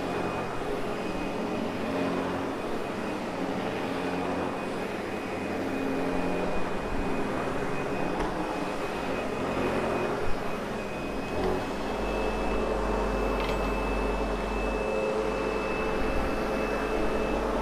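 Sebo X8 upright vacuum cleaner running steadily as its brush roll works a nylon carpet. A constant rush of air carries a thin, high motor whine, and a deeper low rumble strengthens about two-thirds of the way through.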